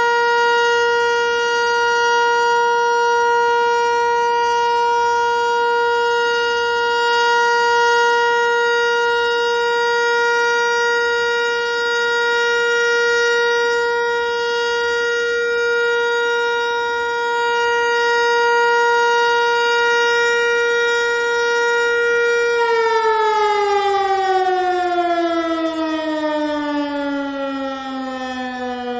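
ASC T-121 electromechanical outdoor warning siren sounding the steady Alert signal, one held tone with strong overtones. About 22 seconds in the tone starts falling steadily in pitch as the siren winds down.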